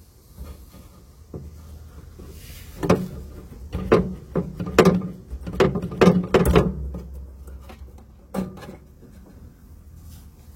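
A series of short knocks and thumps, several close together in the middle and a last one near the end, over a faint low hum.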